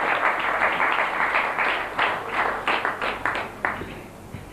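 Audience applause: many hands clapping together at first, then thinning to a few scattered claps that die away about four seconds in.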